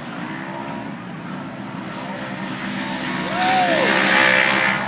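Off-road race vehicle engine running under load, getting louder about three seconds in, with a brief rise-and-fall in pitch.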